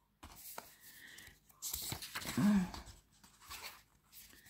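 Tarot cards being handled: a soft rustle and slide of card stock in several short bouts. About two and a half seconds in there is a brief voiced sound, the loudest moment.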